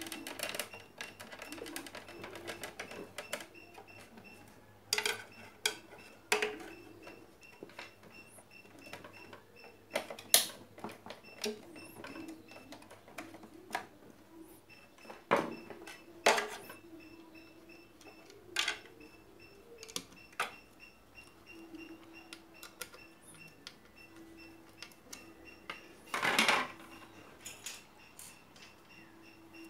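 Irregular clicks and knocks of a blender's parts and tools being handled during repair, with a longer, louder rattle near the end and a faint hum in the second half.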